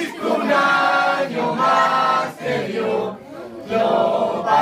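A group of people singing a birthday song together in chorus, in held phrases with short breaks between them.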